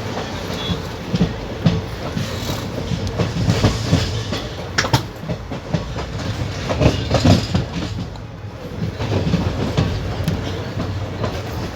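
Passenger train running on the line, heard aboard an ICF coach: a steady low rumble with irregular knocks and clatter of the wheels over the track. The knocks are loudest around five and seven seconds in.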